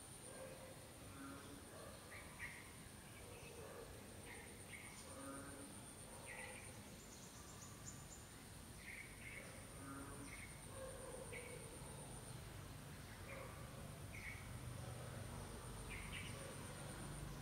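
Faint outdoor ambience: a steady high insect trill with scattered short bird chirps. A low hum comes up about two-thirds of the way through.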